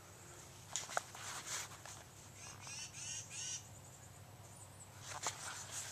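Birds chirping and singing in series of short, high, arched notes. There is a sharp knock about a second in and more clicks near the end from the camera being handled against the fabric of a ground blind.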